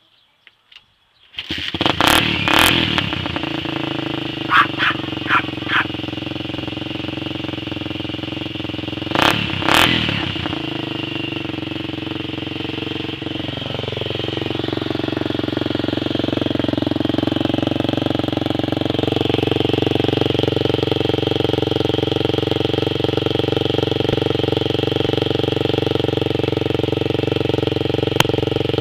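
Honda TRX250X single-cylinder four-stroke engine breathing through a new HMF aftermarket exhaust: it fires up about a second and a half in, is revved in several short throttle blips over the next ten seconds, then settles into a steady idle that grows louder near the end.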